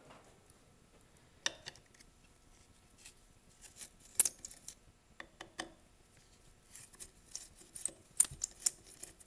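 Scattered small metal clicks and ticks of a screwdriver working the Phillips screws out of the muffler screen cover on a two-stroke string trimmer engine. They come sparsely at first, the loudest about four seconds in, and crowd closer together near the end.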